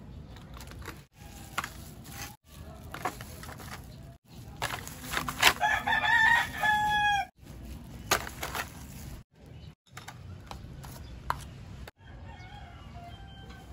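A rooster crowing in the middle of the clip, a run of short notes ending in a long held note that stops abruptly, with a fainter crow near the end. Scattered sharp clicks and crackles of dry fried cassava chips being handled with tongs and fingers.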